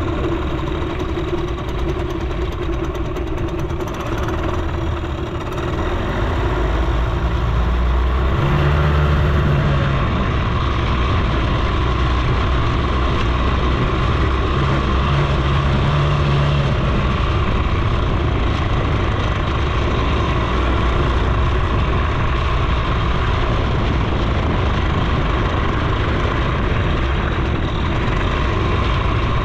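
Suzuki FZ 50 moped's small two-stroke engine running while riding, getting louder about six seconds in as it picks up speed, then holding a steady note.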